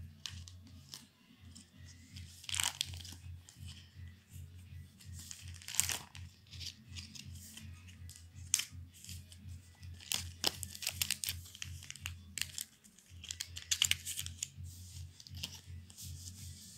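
Trading cards and the plastic sleeve pages of a card binder rustling and crinkling as they are handled, in short irregular bursts with a few sharp clicks. A steady low hum runs underneath.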